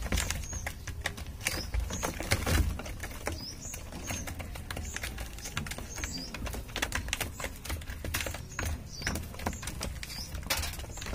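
Pigeons pecking grain from a plastic trough feeder: rapid, irregular clicking taps of beaks striking the grain and plastic. A short high chirp recurs every second or two.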